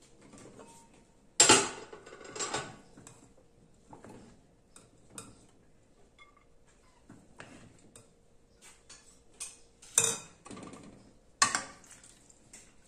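Metal ladle and spoon clinking against aluminium pots and a metal plate while food is dished up, with four louder clanks, two in the first few seconds and two near the end, among lighter clinks.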